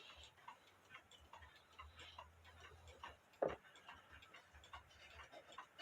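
Mechanical clock ticking faintly, with one louder click about three and a half seconds in.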